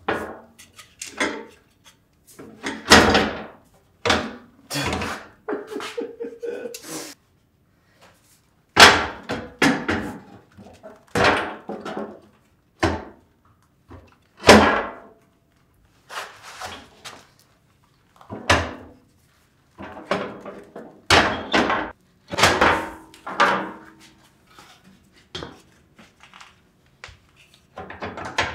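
A heavy electric motor being shoved and rocked in a sheet-steel planer base, trying to seat it on its mounting studs. Irregular clunks, thuds and scrapes of metal against metal.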